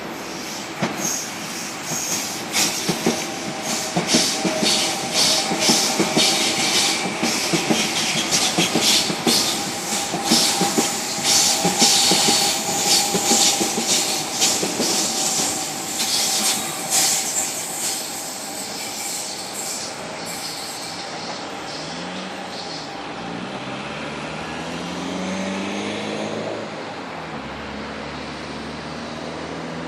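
A passenger train running on rails, its wheels clattering rapidly over rail joints with a steady squeal-like tone, loudest in the first half. In the last third the clatter fades and a motor whine glides up and down in pitch.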